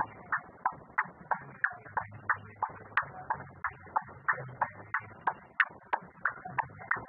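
Steady, even clicking, about three clicks a second, over a faint low hum.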